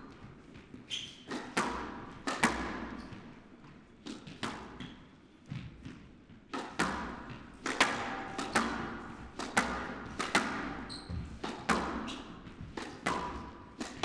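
Squash rally: the ball cracking off rackets and the court walls, each hit echoing, with a shot every half second to a second.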